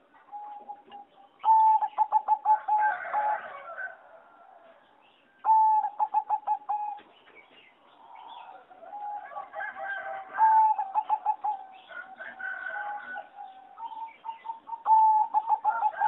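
Zebra dove of the bred singing type, giving its song: four phrases a few seconds apart, each a loud opening note followed by a rapid staccato run of cooing notes.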